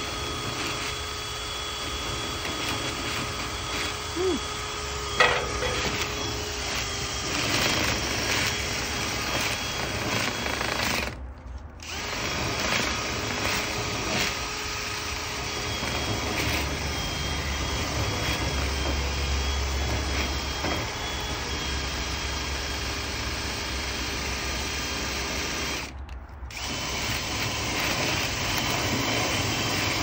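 A DeWalt cordless drill spins a flexible rotary brush rod through a clogged dryer vent duct, running steadily with a motor whine and the rod scraping and rattling inside the duct. The sound breaks off briefly twice, and there is a single knock about five seconds in.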